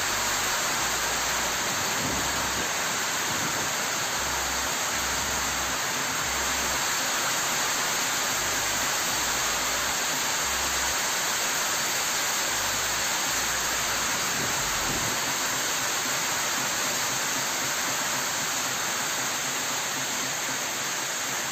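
Torrential rain and storm wind of a cyclone the locals call a tornado, making a steady, dense rushing hiss. Gusts buffet the microphone with a low rumble that comes and goes through roughly the first three-quarters.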